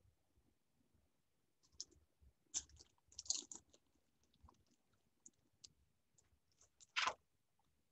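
Faint scattered clicks and short rustles, with a brief louder rustle near the end.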